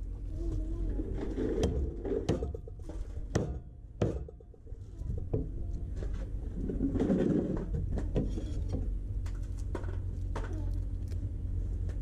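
Knife blade knocking on a wooden chopping board while cutting garlic: scattered sharp knocks at irregular intervals.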